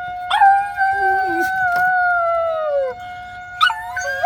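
A dog howls along with a steady outdoor tornado warning siren. One long howl starts just above the siren's pitch and slides slowly down until it breaks off about three seconds in. Short rising yips follow near the end.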